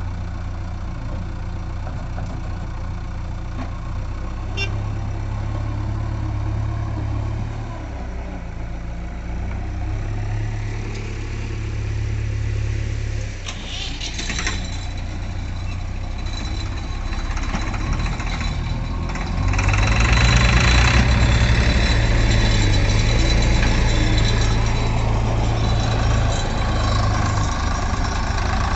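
Diesel engines of a JCB 3DX backhoe loader and a tractor running, a steady low drone that gets louder about twenty seconds in.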